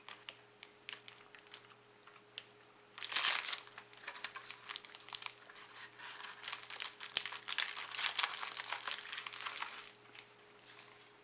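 Crinkly snack wrapper being handled and pulled open: a few light crackles, a louder burst of rustling about three seconds in, then steady crinkling until about ten seconds in.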